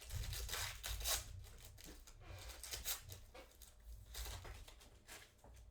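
Trading card packs being torn open and handled: several short bursts of wrapper tearing and crinkling, with the cards rustling.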